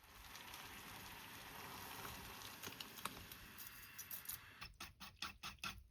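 Kitchen cooking sounds: a steady soft hiss with scattered light clicks, then a quick run of about five evenly spaced knocks near the end.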